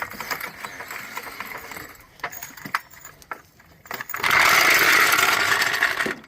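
Hydraulic floor jack being lowered and taken out from under a car: metallic clicks and rattles, then a steady rushing noise about four seconds in that lasts about two seconds and cuts off suddenly.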